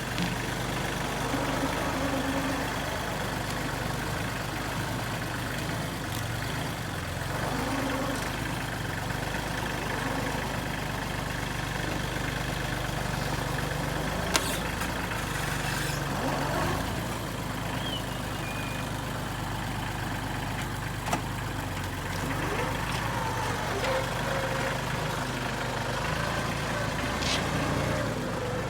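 Tractor engine running steadily while a log is lifted and set in place, with two short sharp knocks about halfway through and a few seconds later.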